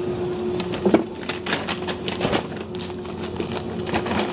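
Irregular footsteps and light taps on a hard floor, over a steady humming tone.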